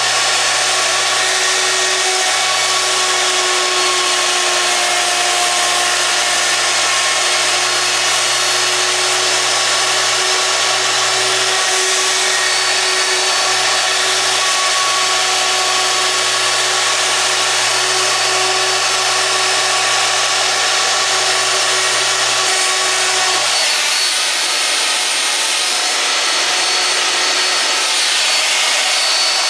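Handheld router running and cutting a hinge mortise into a wooden door edge, its bearing-guided bit following a plastic template. A loud, steady whine; its low hum drops away for a few seconds near the end.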